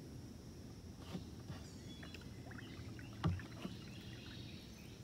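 A kayak being paddled: scattered light splashes and knocks from the paddle, with one louder knock about three seconds in.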